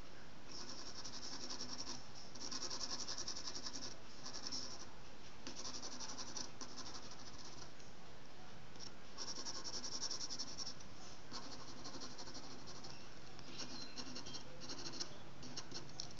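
Pencil scratching on drawing paper in quick shading strokes, in bursts of a second or so with short pauses between.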